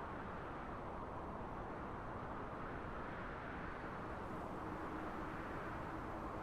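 Wind blowing steadily: a low, even rushing noise that swells slightly about halfway through.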